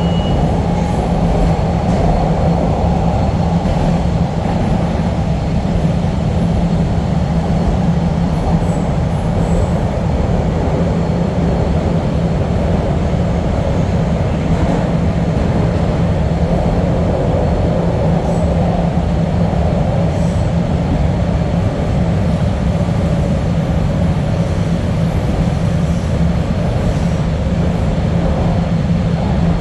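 Chicago CTA Blue Line subway train running, a steady low rumble of wheels and motors on the rails with no stops or pauses.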